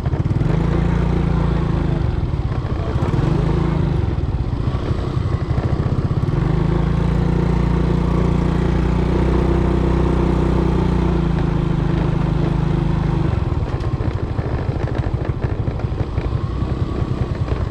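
Small motor scooter's engine running while ridden along a bumpy dirt track. The engine note rises and falls with the throttle a few times, holds steady through the middle, then eases off near the end.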